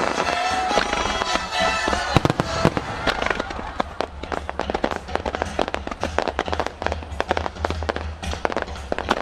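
Fireworks going off in a finale barrage: one big bang about two seconds in, then a rapid string of shell bursts and crackles, several a second, over music with held tones.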